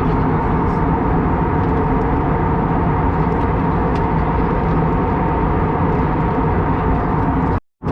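Steady cabin noise of an Airbus A321neo airliner at cruise: a continuous roar of engines and airflow with a steady hum running through it. The sound cuts out completely for a split second near the end.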